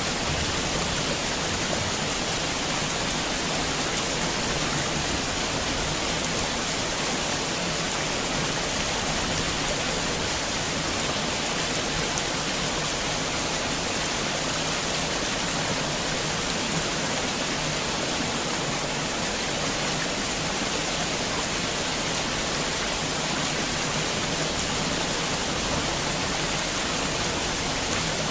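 Heavy rain falling steadily: an even, unbroken hiss with no separate drops or thunder standing out.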